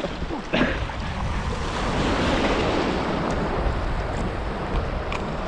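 Wind buffeting the microphone over small waves washing in the shallows, with a brief splash near the start from a hooked fish thrashing at the surface.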